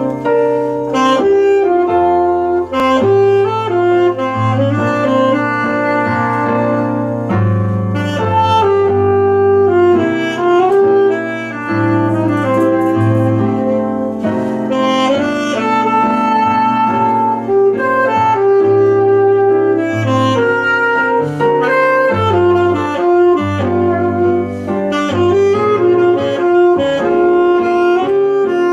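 Saxophone playing a slow melody over piano-sound keyboard accompaniment, with sustained low chords under it, played live.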